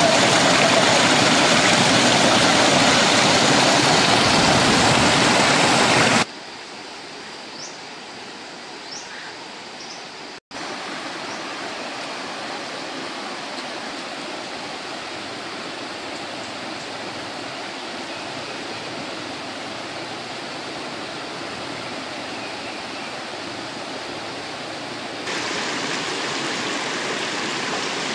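Water rushing over boulders in a rocky mountain stream: a loud close rush for about six seconds, then cut suddenly to a quieter, steady flow, which steps up in level a few seconds before the end. A few faint short chirps sound in the quieter part.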